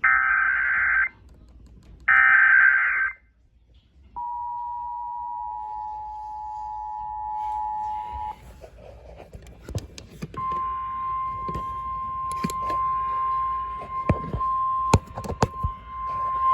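Emergency Alert System alert tones. First two warbling digital data bursts of about a second each (the repeated SAME header), then the two-tone EAS attention signal held about four seconds, then after a short gap a steady single-pitch alert tone with scattered crackles and clicks.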